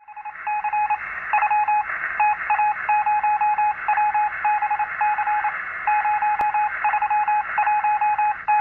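Morse code beeps: a single mid-pitched tone keyed on and off in short dots and longer dashes, over a steady hiss.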